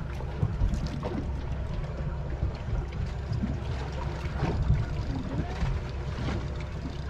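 Steady low rumble of a fishing boat at sea, with water noise and scattered small knocks and clicks.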